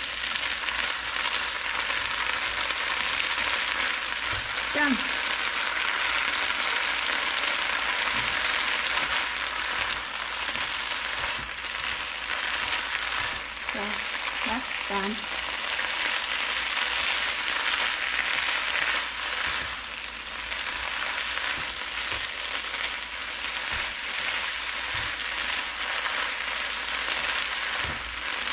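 Water spinach and garlic sizzling in a nonstick wok as they are stir-fried, a steady frying hiss, with occasional light taps as wooden chopsticks toss the greens against the pan.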